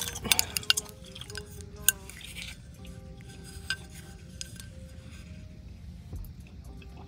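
A small candle in its container being handled: a quick run of sharp clinks and taps in the first couple of seconds, then a lone tap, over soft background music.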